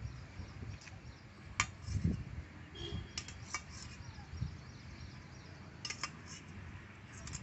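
A few light metallic clicks of a steel spoon against a steel bowl over faint outdoor background: one about a second and a half in, a quick cluster around the middle, and another pair near the end.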